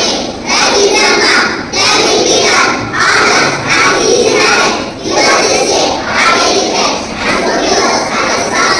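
A group of young children chanting together in unison, in regular phrases about a second long with short breaks between them.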